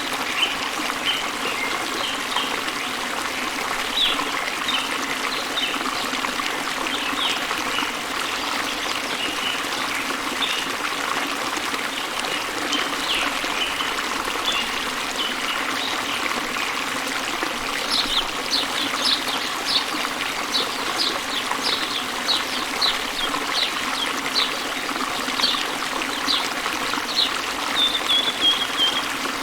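Steady rush of a waterfall with songbirds chirping over it; about two-thirds of the way through, the chirps turn into a fast run of short high notes that ends in a brief trill.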